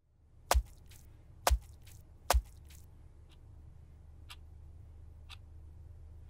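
Three loud, sharp hits about a second apart, then a clock ticking softly once a second over a low steady hum.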